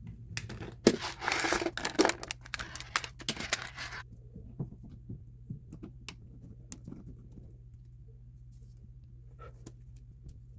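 Handling noise while keyboard parts are worked on: crinkling and rustling mixed with sharp clicks and small knocks for about four seconds, then scattered light clicks.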